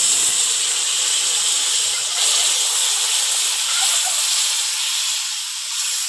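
Hot water hitting the hot oil in a kadai of frying elephant-foot yam pieces, giving a loud, steady sizzling hiss with steam that eases slowly toward the end.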